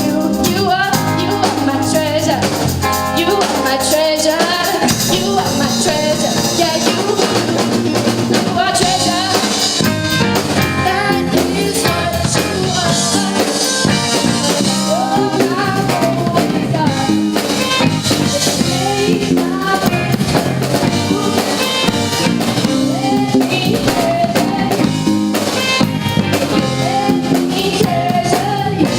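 Live band playing a song: drum kit keeping a steady beat under bass, guitar and keyboard, with a female lead singer.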